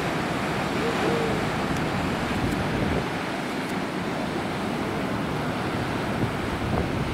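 Ocean surf breaking and washing ashore, a steady rush of noise with wind across the microphone.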